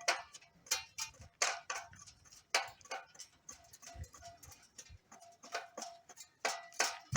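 Metal being struck again and again: irregular sharp metallic knocks, a few a second, some leaving a short ringing tone.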